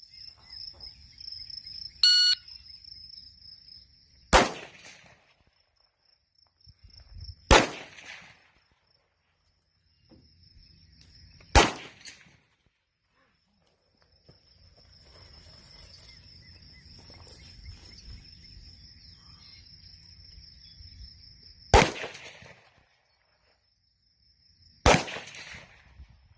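Five rifle shots, unevenly spaced several seconds apart with a longer pause in the middle, each a sharp crack with a short tail.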